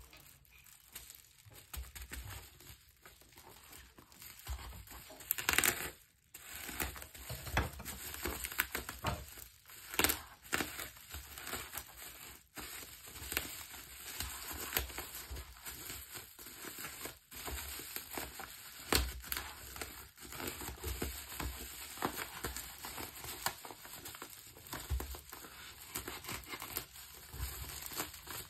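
Crinkly black plastic packaging wrap crinkling and tearing as it is cut and pulled open with a small knife, in irregular crackles with a few louder snaps.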